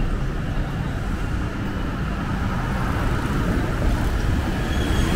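Street traffic with motor scooters passing, a steady low engine rumble over road noise that gets louder toward the end.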